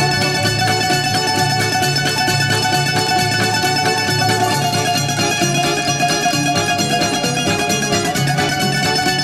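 Instrumental Greek syrtaki music led by a bouzouki playing quick plucked melody lines over a steady bass.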